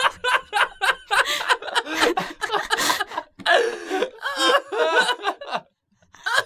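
People laughing hard in a run of chuckles and snickers, breaking off briefly near the end.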